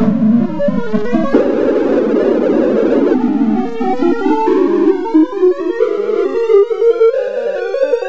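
The Sound of Sorting's synthesized beeps during an in-place MSD radix sort: a rapid stream of short tones, each one's pitch set by the value of the array element being accessed, stepping up and down. For a second or two the tones blur into a dense wash, then separate into quick stepped runs.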